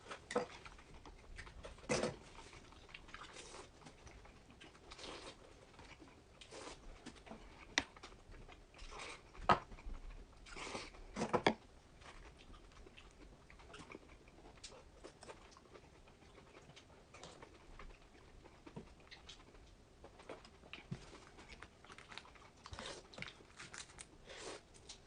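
Close-up eating sounds: chewing and biting, irregular small clicks and short crunchy noises, with a few louder bites about two seconds in and again around ten to eleven seconds in.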